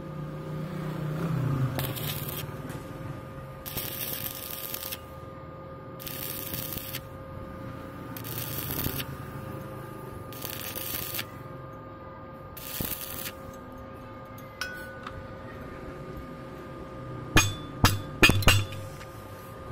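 Stick-welding arc crackling in about six short bursts of roughly a second each, a couple of seconds apart, as the electrode is struck and broken off to fill a wide gap in stitches. Near the end come a few sharp metallic clinks.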